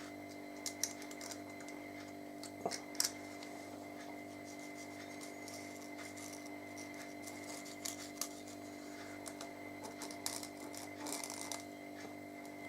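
Scattered light clicks and taps of small objects being handled, loudest about one and three seconds in, over a steady background hum.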